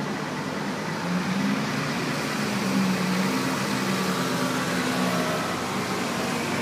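Road traffic on the street below, with a city bus's engine running as it drives past close by. The noise is steady, loudest about three seconds in.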